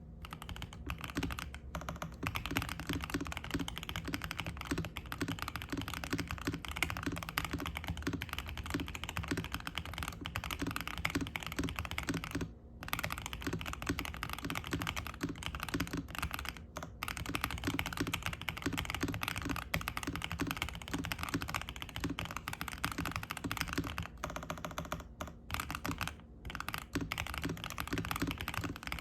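Fast typing on a Zuoya GMK67 mechanical keyboard with stock DK Roastery Iced Latte switches, a polycarbonate plate, full foam and ABS keycaps, set on a desk mat: a dense, continuous clatter of keystrokes that breaks off briefly twice.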